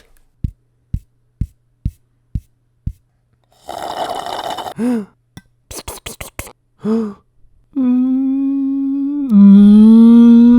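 A person making sound effects with their mouth: five soft low thumps about half a second apart, a hissing burst that ends in a falling 'woop', a quick run of sharp clicks, then a held hum that drops lower and louder for the last second and a half, rising slightly before it cuts off.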